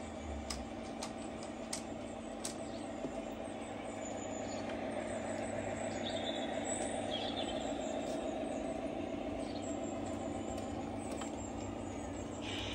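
LGB G-scale garden railway train running on outdoor track: a steady motor and gear hum that swells a little as it passes. There are a few sharp clicks in the first three seconds, and birds chirp in the background.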